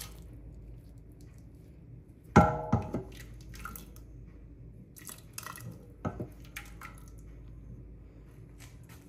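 A metal serving spoon knocks and scrapes against a steel pot and plate as food is dished out, in a handful of separate clinks. The loudest comes about two and a half seconds in and rings briefly like struck metal.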